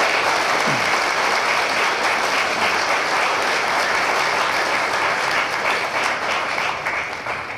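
An audience applauding: dense, steady clapping that dies away near the end.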